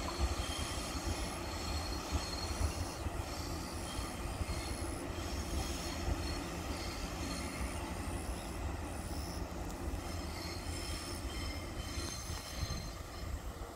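A passenger train running along the track, heard from on board: a steady low rumble from wheels and rails, with short high wheel squeals that come and go.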